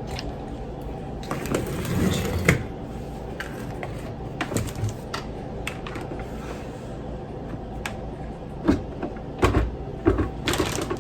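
Scattered clicks and knocks of kitchen items being handled, busiest about two seconds in and again near the end, over a steady low hum.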